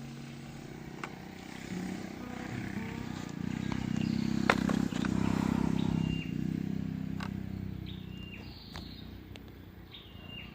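A small engine passes by, growing louder about four seconds in and then fading away. A few short high chirps sound near the end.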